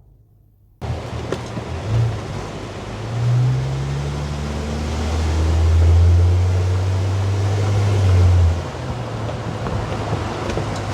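Car driving, its engine hum rising and falling under a steady rush of road and wind noise; the sound starts abruptly about a second in.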